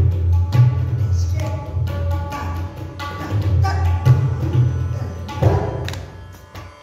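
Tabla being played: quick strokes on the right-hand drum over deep, ringing bass tones from the bayan, fading out near the end.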